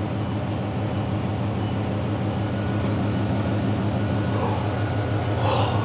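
Vehicle engine idling steadily, a low even hum, running so its alternator charges the newly installed sub-battery through the DC-DC charger.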